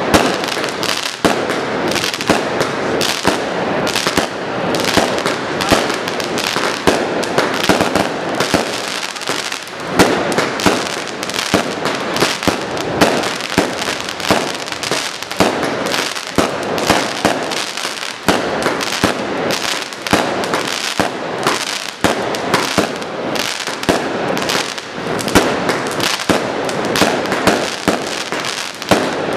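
Fireworks going off without pause: dense, overlapping bangs and crackles, with louder bangs every second or two.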